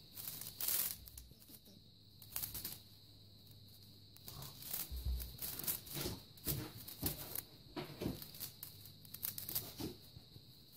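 A kitten's claws scratching at a chenille fabric mat, mixed with the rustle of a feather wand toy, as the kitten pounces and bats at it: irregular short scratches and rustles, busiest in the middle of the stretch. A faint steady high-pitched whine runs underneath.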